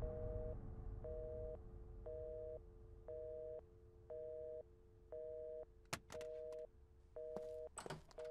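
Telephone busy signal from a corded desk phone pulled off its cradle: a two-tone beep repeating steadily, about half a second on and half a second off, over a faint steady hum. A few short clicks come in the second half.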